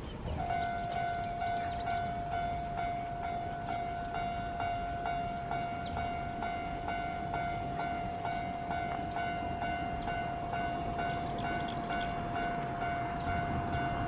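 Japanese railway level-crossing alarm starting up about half a second in: a steady ringing tone with a quick repeating strike over it, about two strokes a second, warning that a train is coming.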